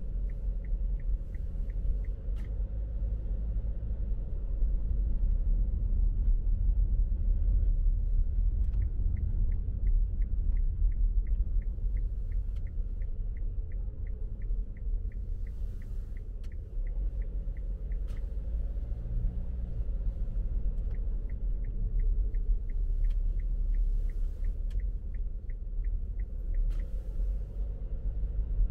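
A car driving: steady low road and engine rumble with occasional small knocks from the road surface. Three runs of light, regular ticking, about three ticks a second, come and go over it.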